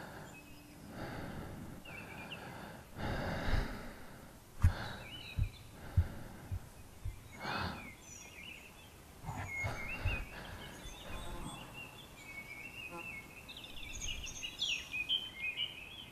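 Slow, deep breaths drawn in and let out, with a handful of short, soft low thumps around the middle. From about halfway on, birds chirp and twitter more and more.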